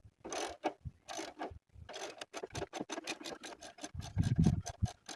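Ratchet wrench with a 1/2 inch socket and extension loosening the horn's mounting bolt: a few short strokes, then a fast run of clicks at roughly ten a second. A short low bump, the loudest sound, comes about four seconds in.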